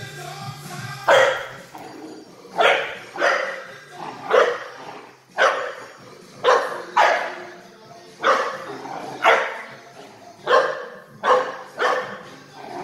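Small black-and-tan dog barking over and over, about a dozen short, sharp barks at uneven gaps of roughly a second.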